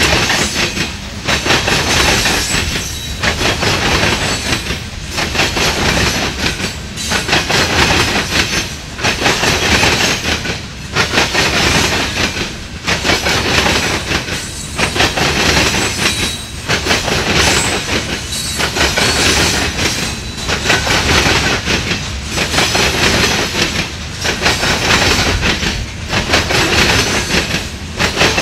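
Empty steel coal hopper cars of a freight train rolling past over rail joints and crossing diamonds. The wheels clatter in a steady clickety-clack that rises and falls about every two seconds.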